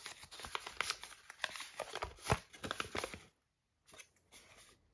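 A paper instruction leaflet being unfolded and handled, rustling and crinkling in a run of quick crackles that stops about three seconds in.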